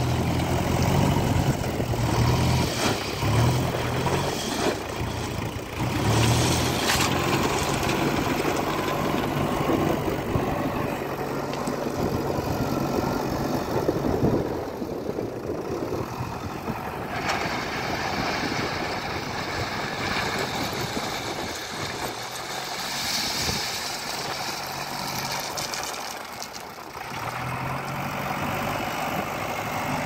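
Diesel engine of a JCB 3DX backhoe loader running and working under load, its note rising and falling. In the first several seconds crushed stone rattles as it pours from the front bucket into a truck bed.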